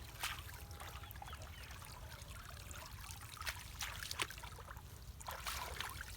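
Water trickling and splashing, with a few sharp splashes about a second apart near the middle and end.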